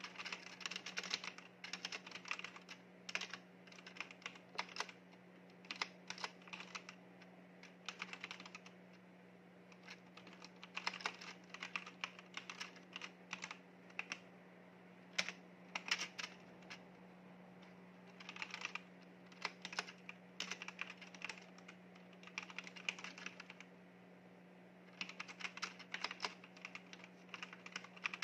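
Typing on a mechanical keyboard: runs of quick key clicks broken by pauses of a second or two, over a faint steady low hum.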